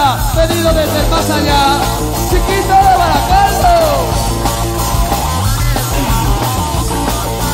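Live pop-rock band playing: a bending lead melody over steady bass and drums, with a low line sliding up and back down about five seconds in.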